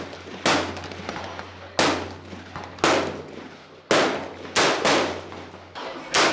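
Rifle gunfire on an outdoor shooting range: about six sharp shots at uneven spacing, roughly a second apart, each with a short ringing tail.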